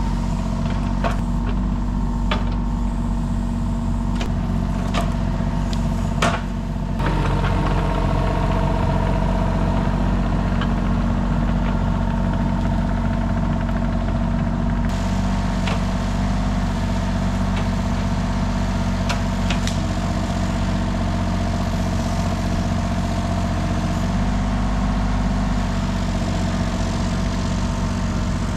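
Kubota mini excavator's diesel engine running steadily at working revs while it moves and handles pine logs, with occasional sharp knocks. The engine note shifts about seven seconds in.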